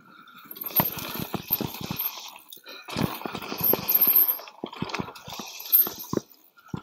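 Mountain bike being ridden down a dirt trail: tyre noise in three rushes of a second or two, with many sharp rattles and knocks from the bike.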